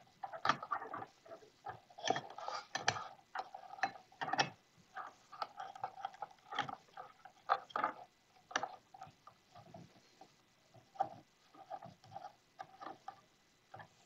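Irregular small clicks and metallic taps of stainless steel tube-fitting parts (nut, cutting ring and tube end) being handled and fitted together by hand, some with a short ring.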